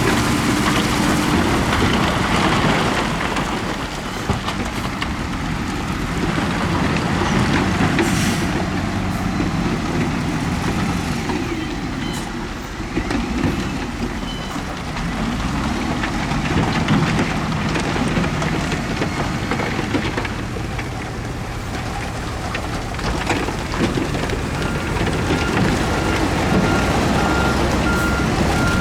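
Heavy diesel construction machinery, bulldozers and dump trucks, running and working under load with a steady engine rumble. Near the end a reversing alarm starts beeping at an even rate.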